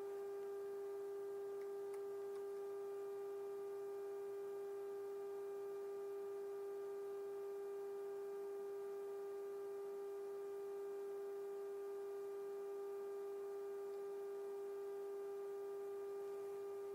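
GE 7-2877H AM radio's speaker playing the steady audio tone of a signal generator's modulated 455 kHz test signal, a single unchanging mid-pitched tone with buzzy overtones, as used for peaking the IF alignment.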